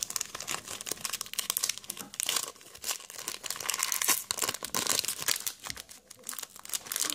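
Foil Pokémon booster pack crinkling in the hands and being torn open, a dense run of crackles throughout.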